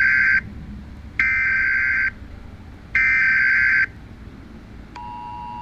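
Emergency Alert System SAME header: three screechy digital data bursts, each just under a second long with about a second's pause between them. About five seconds in, the steady two-tone EAS attention signal starts.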